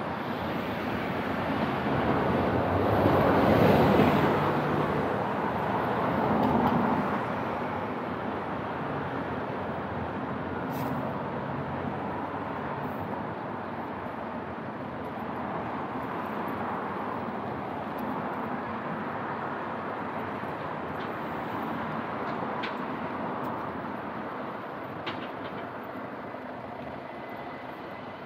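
Road traffic on a town street: a steady hum of passing vehicles, with one vehicle passing close and loud about four seconds in and another shortly after, around seven seconds in.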